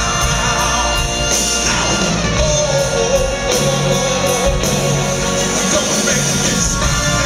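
Live soul band performing a slow ballad: a male lead singer sings and shouts into a handheld microphone over drums, bass and guitar, holding one long note a few seconds in.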